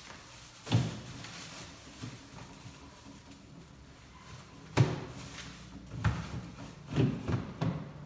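Food and containers being put into an open refrigerator, knocking against its plastic shelves and drawers. There is a sharp knock less than a second in, a louder one near the middle, and a quick run of knocks in the last two seconds.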